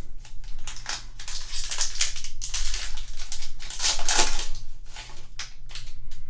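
Foil Yu-Gi-Oh! booster-pack wrapper crinkling and tearing open by hand, a dense crackle that is loudest about four seconds in.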